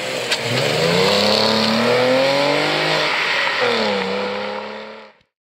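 A car engine accelerating away under load, its pitch climbing for about two seconds and then holding. About three and a half seconds in, the pitch drops sharply and climbs again. The sound cuts off abruptly just before the end.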